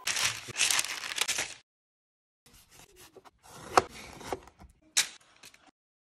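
Food-prep handling sounds: a rustling, brushing noise for about a second and a half, then a knife slicing through lemons, with sharp taps of the blade on the cutting board, two of them loudest.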